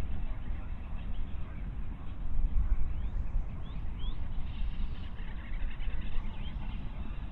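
Low, uneven rumble of wind on the microphone, with a few short rising bird calls about three to four seconds in and again near the end.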